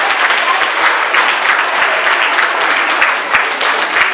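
Audience applauding: many hands clapping in a dense, even round of applause.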